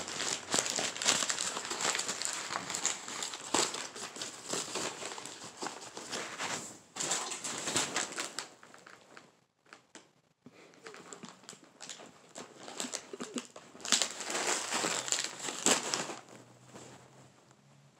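A bag being crinkled and rustled by hand in irregular bursts, which stop for a moment about halfway through and pick up again with a loud burst near the end.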